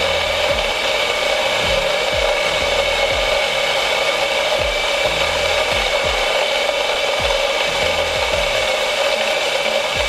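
N500 Auto espresso grinder's motor running steadily as its burrs grind coffee beans into a portafilter at a fine espresso setting, a constant whirring grind.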